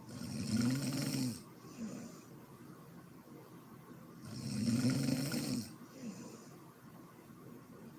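A woman snoring in deep sleep: two long, pitched snores about four seconds apart, each followed by a short, softer sound.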